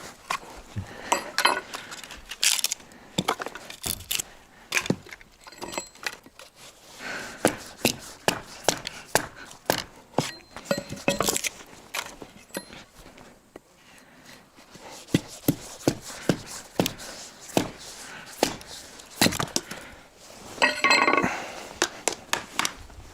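An axe chopping and splitting small pieces of firewood into kindling: repeated sharp chops with wood cracking and splintering, coming irregularly, sometimes several in quick succession.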